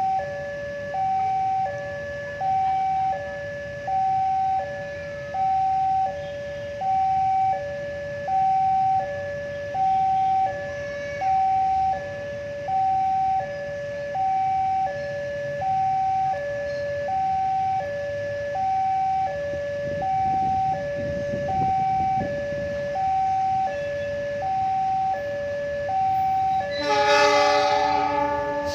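Railway level-crossing warning alarm sounding two alternating electronic tones, a high and a low, about once a second, over the rumble of an approaching train. Near the end a locomotive horn sounds one loud blast of several tones at once, lasting about a second and a half.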